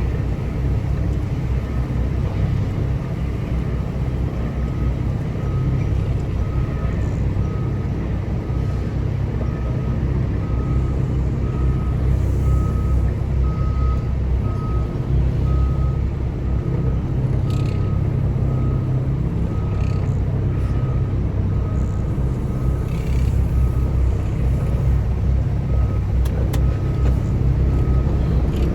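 Semi truck's diesel engine idling with a steady low rumble, while a vehicle's backup alarm beeps evenly, about one and a half beeps a second, from a few seconds in.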